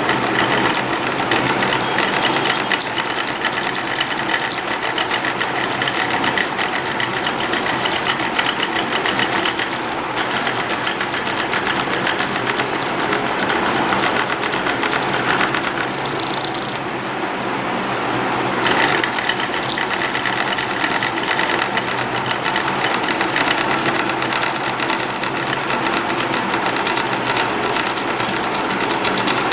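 Stepper motors of a DIY tabletop CNC pen plotter driving the pen carriage as it draws, a steady buzzing with rapid ticking. About halfway through the sound briefly turns duller and a little quieter for a couple of seconds, then resumes as before.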